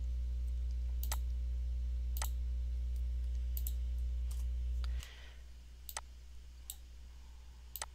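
Computer mouse clicking at irregular intervals while cells are selected in a spreadsheet, over a steady low electrical hum that drops away suddenly about five seconds in.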